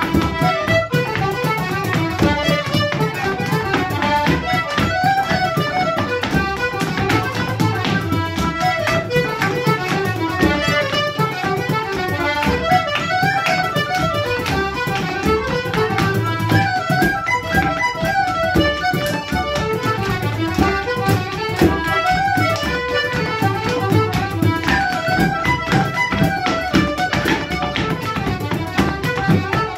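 Irish traditional dance tune played briskly on a button accordion with tin whistles, while dancers' shoes tap out steps on a wooden floor.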